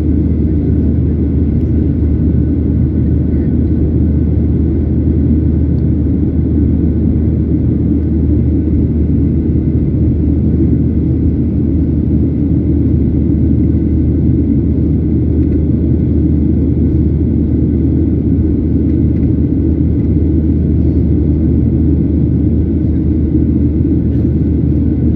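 Boeing 737 cabin noise in flight, heard from inside the cabin: a steady, unchanging low drone of engines and airflow.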